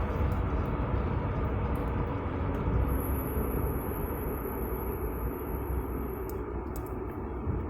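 Scion FR-S on the move, its road and tyre rumble easing a little as the car slows, with a thin, very high-pitched steady squeal for about three seconds midway that starts and stops abruptly: the brake noise the car is making.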